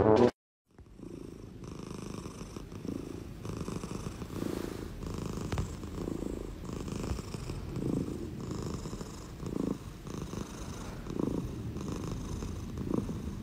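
Tabby cat purring close up while being stroked, the purr swelling and easing with each breath in and out, about once a second.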